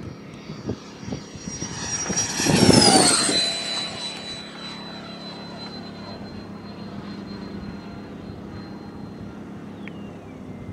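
Electric ducted fan of an RC model L-39 jet (Tamjets TJ90 fan, NeuMotor 1515 motor on 11S) making a fast close pass. Its high whine swells to its loudest about three seconds in and drops in pitch as the model goes by, then carries on as a steadier, fainter whine.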